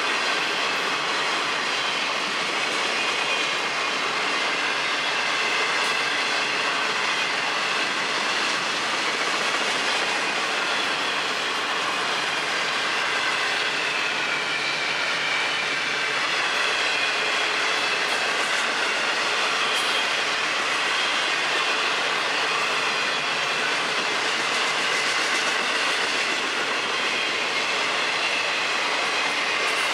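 Intermodal freight cars of a long train rolling past: a steady rumble of steel wheels on rail, with faint high wavering squeal from the wheels.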